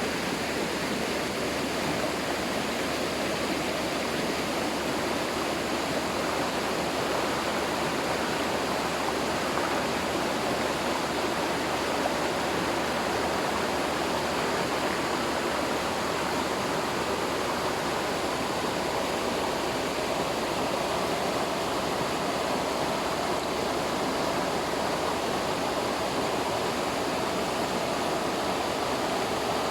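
Waterfall and its stream, water falling and rushing over rocks in a steady, even roar.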